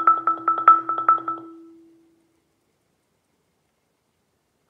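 Marimba bar struck rapidly and repeatedly on one note with yarn mallets, hands alternating, about six strokes a second, forming a roll. The strokes stop about a second and a half in and the note rings out. Strikes resume right at the end.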